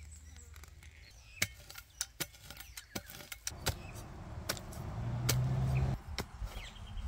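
Metal clicks and clacks as a steel folding camp shovel is unfolded and its hinge locked. Then the blade is driven into dry soil, with scraping crunches and knocks. A low drone swells under the digging and cuts off about six seconds in.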